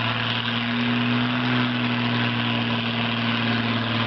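Engine of a homemade giant three-wheeler mud-racing vehicle running steadily under load as it pushes through deep mud. The engine note rises slightly about a second in, then settles.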